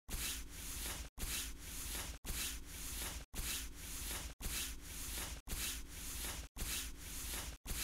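Looped footstep sound effect, a scuffing step on pavement repeated about once a second, each loop cut off by a brief hard gap.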